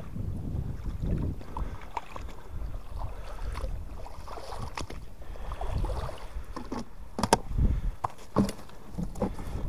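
Water sloshing and splashing, with a few sharp knocks in the last few seconds.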